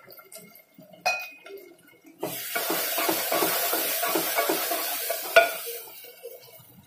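Flat spatula stirring and scraping spice-coated onion-tomato masala sizzling in oil in a pot, a quick run of strokes over a steady hiss that starts about two seconds in and fades near the end, with a sharp knock against the pot just before it fades. A single click sounds about a second in.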